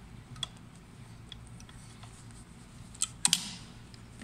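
Faint clicks and ticks as fabric is handled and adjusted under a sewing machine's presser foot, over a low steady hum, with a sharper cluster of clicks about three seconds in.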